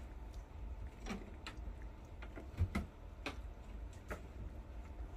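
Scattered light clicks and taps, about half a dozen at irregular intervals, from four-week-old German shepherd puppies eating from food bowls and tussling in their pen, over a low steady rumble.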